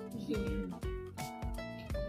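Background music: guitar with a steady beat.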